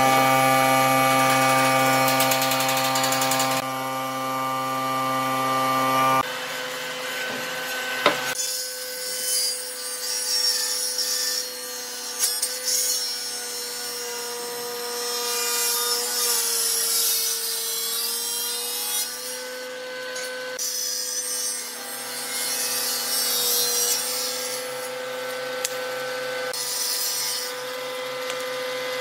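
Table saw of a Hitachi combination woodworking machine running steadily while ripping a thick bark-edged slab of fresh tree trunk; the cutting hiss comes and goes, and the motor's pitch sags slightly under load midway. A louder buzzing hum fills the first six seconds and cuts off abruptly, and a sharp knock comes about eight seconds in.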